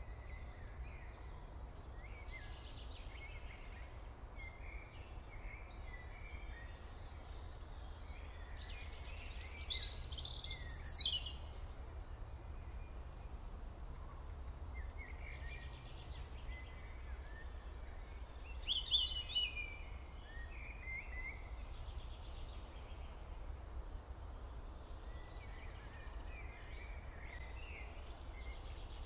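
Birds chirping and singing, with a short high chirp repeated steadily and louder bursts of song about a third of the way in and again near the middle, over a steady low hum.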